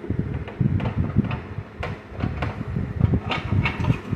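Plastic Nissan 350Z headlight housing and its wiring being handled on a workbench: irregular rustling, knocking and clicking of plastic parts and wires, with a few sharp clicks past the middle.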